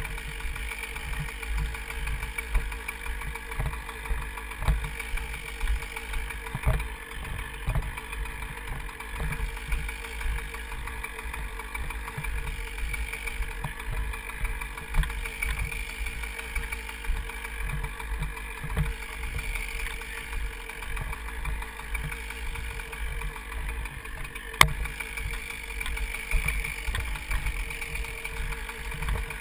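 An engine idling steadily, with one sharp click about 24 seconds in.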